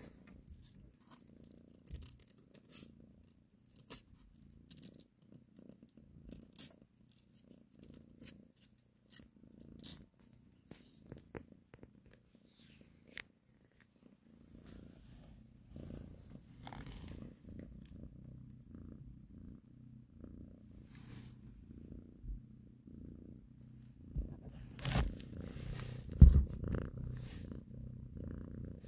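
Cat purring steadily while nursing kittens, a low rumble that grows louder about halfway through. Scattered light clicks run through it, and a single sharp knock sounds near the end.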